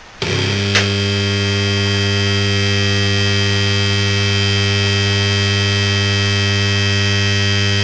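Danfoss Maneurop MTZ100 compressor motor switched on straight from the mains with its Klixon overload bypassed: it comes on suddenly with a loud, steady electrical hum and does not start turning, the locked motor drawing around 38 amps. A single click sounds just under a second in.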